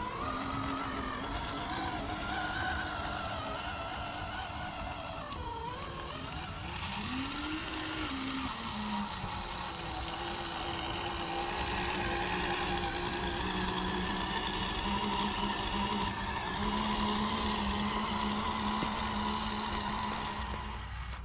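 Vaterra Ascender scale RC crawler's electric motor and geared drivetrain whining as it crawls over the trail. The pitch rises and falls with the throttle, with a steady high whine underneath.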